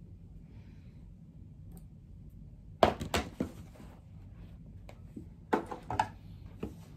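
Handling noise: an embroidery hoop with a T-shirt in it being handled against an embroidery machine that is not running. There is a low hum at first, then a cluster of sharp clicks and knocks about three seconds in and another near the end.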